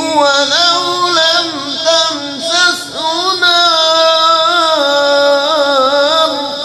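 A man's voice reciting the Quran in the melodic, ornamented style of tajweed, gliding and wavering through a long phrase with drawn-out held notes, fading near the end.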